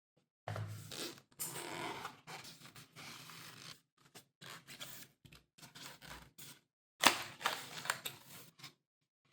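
Phone retail box and its packaging being handled and opened: a run of noisy scrapes and rustles in uneven bursts with short pauses, the sharpest starting about seven seconds in.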